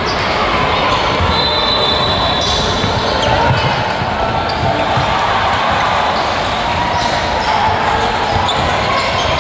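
Basketball game sounds in a gym hall: a ball bouncing on the court amid a steady wash of crowd voices, with a few short high squeaks.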